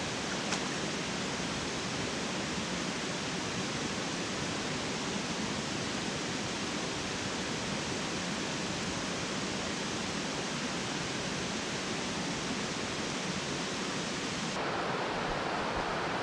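Steady, even rush of a mountain stream's cascades. The sound changes abruptly near the end to a fuller, closer rush.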